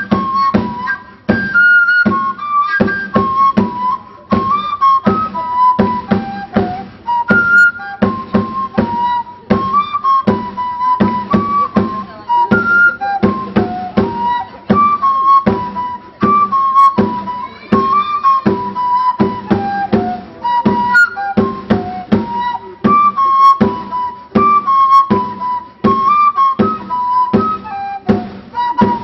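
Pinquillo, an Andean cane duct flute, playing a repeating melody that hovers around one note with short turns above and below it. A large double-headed drum keeps a steady beat under it.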